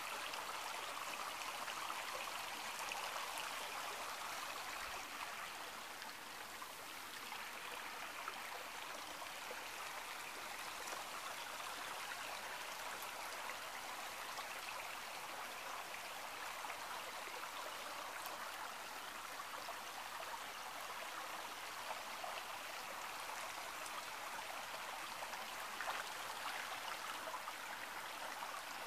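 Stream rushing over stones, a steady, even water noise.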